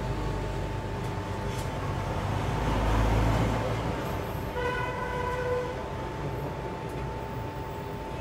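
Background vehicle noise: a low rumble swells and fades about three seconds in, followed about a second later by a short horn-like toot, over a faint steady tone.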